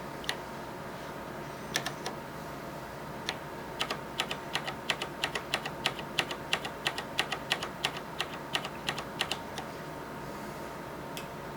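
Keystrokes on an Infinity ErgoDox mechanical keyboard: a few scattered key presses, then a steady run of typing at about three to four keys a second lasting some six seconds, then a single last keystroke near the end.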